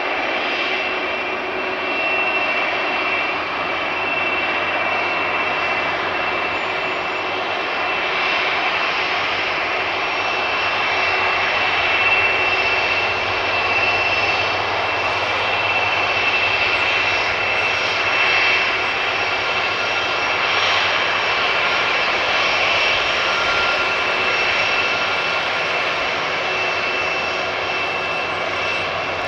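Boeing 747-400 freighter's four jet engines running: a steady rushing noise with a high whine held through it.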